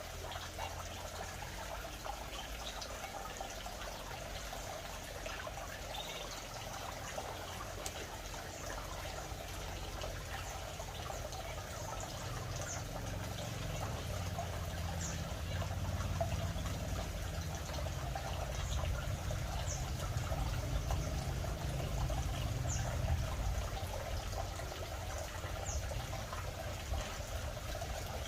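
A steady rushing noise with a low rumble that grows louder about halfway through. Over it come a few faint, very short high chirps from small aviary birds, canaries and zebra finches.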